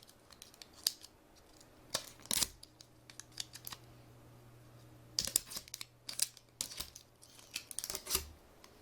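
Scattered small clicks and taps of LCD panel parts being handled, a couple about two seconds in and a quicker run in the second half, over a faint low hum.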